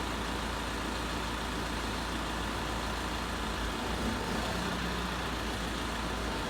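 Heavy vehicle engine running steadily, a low, even hum with no change in pace.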